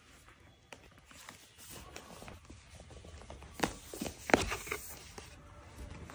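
Light handling sounds of items being unboxed: scattered soft clicks and taps, with a few sharper knocks bunched together around four seconds in.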